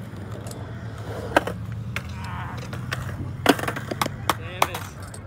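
Skateboard wheels rolling on a concrete bowl with a steady low rumble, broken by sharp clacks of the board striking the concrete. The loudest clack comes about three and a half seconds in, followed by several quick clatters as the skater bails and the board comes down without him.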